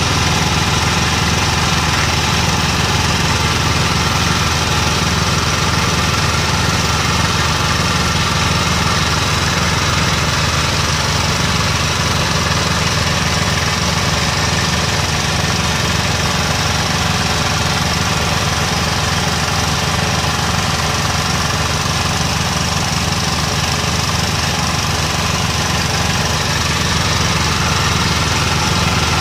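Engine of a traditional oil-well drilling rig running steadily at an even speed.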